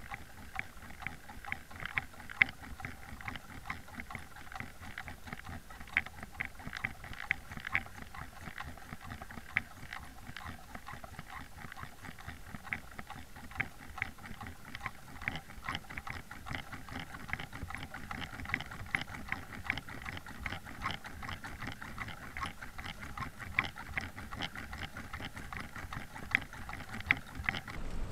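Underwater sound picked up by a camera towed through the river behind a trolled jig: a dense run of irregular clicks and ticks, several a second, over a faint steady hum.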